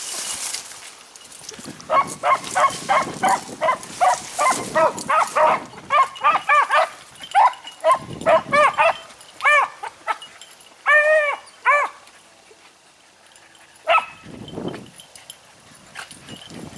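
Beagles baying on a rabbit's track. About two seconds in, a rapid string of short, sharp yelps starts. It lengthens into drawn-out, arching bays about halfway through, stops, and is followed by one more short bark a few seconds before the end.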